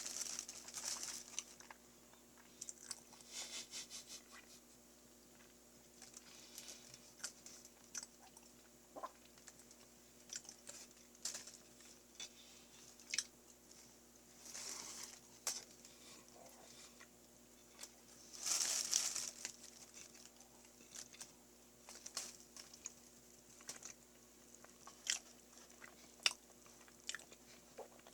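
Close-miked chewing and wet mouth sounds of a person eating a soft chocolate treat made from Choco Pies, in short irregular bursts with a few louder smacks.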